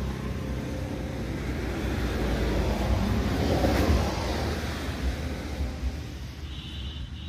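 A motor vehicle passing on the road, its noise swelling to a peak about four seconds in and then fading away.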